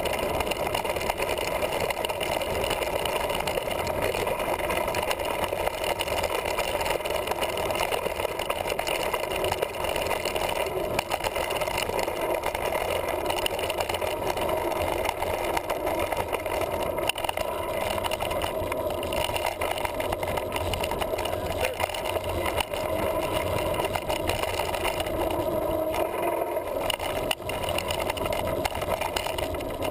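Mountain bike rolling fast down a dirt trail, heard through a handlebar-mounted GoPro: a steady rush of wind and tyre noise with continual small rattles and clicks from the bike over the rough ground.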